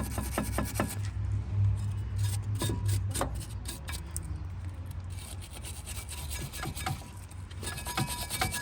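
Irregular scraping and rubbing strokes as the rear brake pad seats on the caliper bracket are cleaned by hand, with a few light knocks of the tool against the metal, over a steady low hum.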